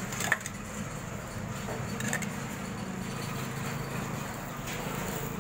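A flat metal spatula clinking against a metal oil pot and an iron tawa while oil is spread on a paratha: one sharp clink about a third of a second in, a smaller one about two seconds in, and a faint one near the end, over a steady low background rumble.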